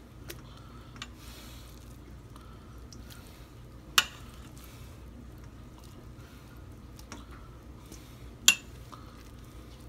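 Metal tongs clinking against a stainless-steel Instant Pot inner pot while chicken thighs are lifted out: two sharp clinks, about 4 and 8.5 seconds in, with a few fainter ticks and soft squishing of the food between them.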